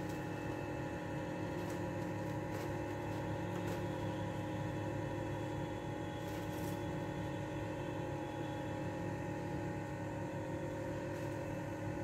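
A steady mechanical hum of several held tones, like a small motor running, with a few faint light ticks.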